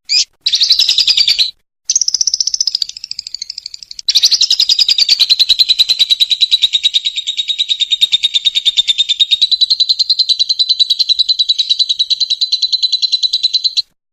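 Lovebird singing its long 'ngekek' chatter: a short chirp and a brief rapid burst, then a fast rattling trill of notes that runs on for about twelve seconds and cuts off abruptly near the end.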